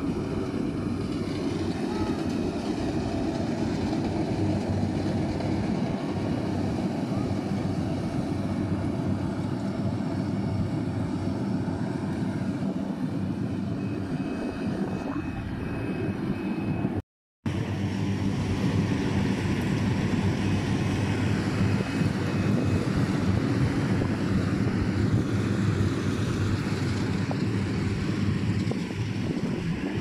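Yanmar combine harvester's diesel engine and threshing machinery running steadily while it harvests rice, a constant low drone. The sound cuts out for a split second just past the middle.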